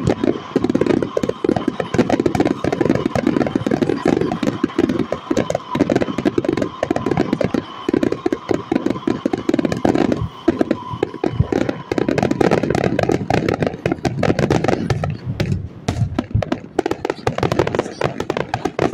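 Aerial fireworks display going off in a dense, rapid barrage of shell bursts and crackles. It thins briefly about three-quarters of the way through, then builds again.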